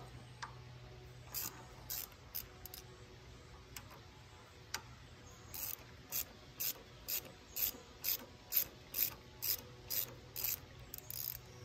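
Ratchet wrench with a 14 mm socket clicking as it loosens the valve-train (rocker-arm) bolts on the engine's cylinder head. A few scattered clicks come first, then a steady run of ratcheting strokes, about two a second, through the second half.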